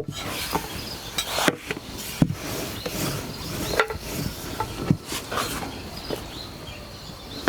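Irregular sharp knocks and clicks, a few a second apart, over faint steady chirping of insects.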